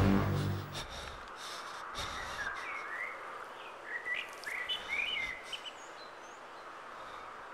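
Music dies away in the first second, leaving a steady outdoor ambience with a few short bird chirps in the middle.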